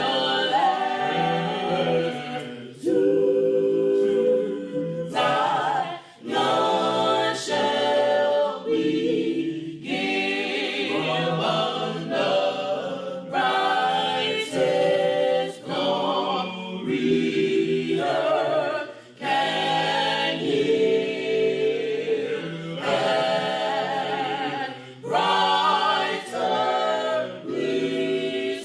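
A cappella gospel choir singing in short phrases, with brief breaks between them.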